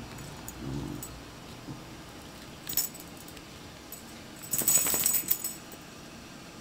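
Dachshund's collar tags jingling as it moves, briefly about three seconds in and again, louder and longer, near five seconds. A low pig-like grunt from the dachshund comes near the start.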